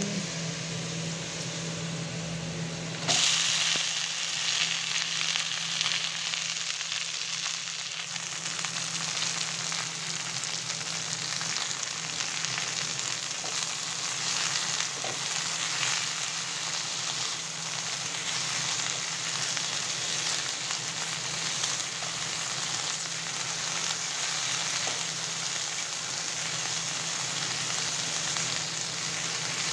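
Chopped okra frying in hot oil in a kadai with onions and green chillies, a steady sizzle that jumps suddenly louder about three seconds in as the okra goes into the oil. A spatula stirs it through the pan.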